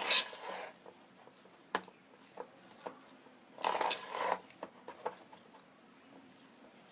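Thick paste of leftover rice and spices being mixed by hand: two short wet, scraping passes, one at the start and one about three and a half seconds in, with a few light clicks between.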